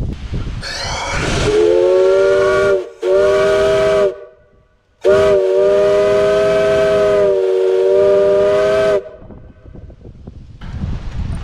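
Steam whistle of a 3/4-scale Case 65 hp steam traction engine blown three times: two short blasts close together, then a long one of about four seconds. Each blast sounds a chord of several notes at once over a hiss of steam.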